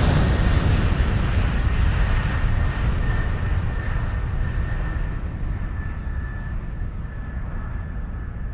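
Jet aircraft roar receding: a low rumble with a faint steady whine, fading gradually as its higher part dies away.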